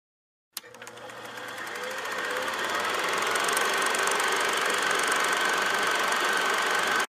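Film projector sound effect: a rapid mechanical clatter that starts with a click, builds up over the first few seconds, holds steady, then cuts off suddenly.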